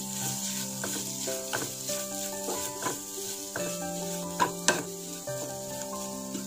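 Wooden spatula stirring and scraping a dry jackfruit-and-coconut stir-fry in a nonstick pan, over a light sizzle of freshly added coconut oil. Two sharp knocks of the spatula against the pan come about four and a half seconds in.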